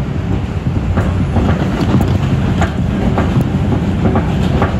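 An R142 subway car running at speed, heard from inside: a steady loud rumble of wheels and running gear. Sharp clicks come about every half second as the wheels pass over rail joints.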